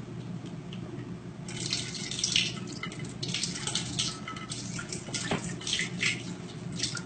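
Water running and splashing in uneven spurts from a bottled-water cooler's tap as a cat paws at the spigot, beginning about a second and a half in. A steady low hum runs underneath.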